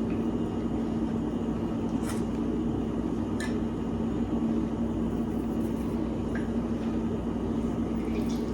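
Small electric citrus juicer motor humming steadily with one even low tone while a lime is juiced, with a few faint clicks.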